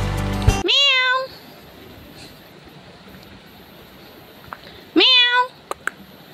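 A domestic cat meowing twice, about four seconds apart. Each meow is short and rises at the start, then holds its pitch.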